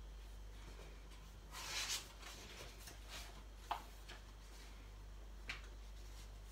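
Pages of a paper colouring book turned by hand: a soft paper rustle a little under two seconds in, then two short, sharp paper flicks later on, over a low steady hum.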